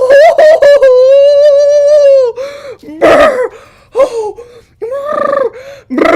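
A high-pitched voice exclaiming without words: a long drawn-out "whoa" lasting about two seconds, then several short gasps and "ooh"s with pauses between them.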